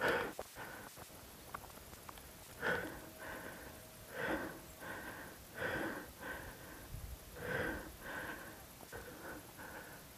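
A person breathing hard close to the microphone, one breath about every second and a half, the first one sharpest.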